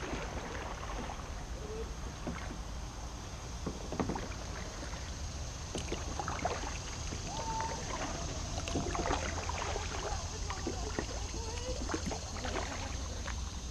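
Kayak paddle strokes: the blade dipping and splashing in calm water, with drips and irregular small knocks.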